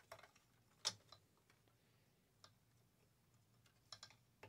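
Faint, scattered clicks and taps of a large hard-plastic toy mech being handled and posed, with one sharper click about a second in.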